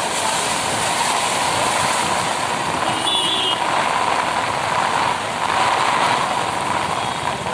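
Steady rushing noise of road traffic in heavy rain on a waterlogged street, with a brief high tone about three seconds in.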